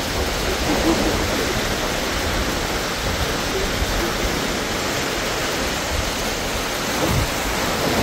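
Steady rushing noise of wind and sea water around a small boat, with its motor stopped and no engine sound.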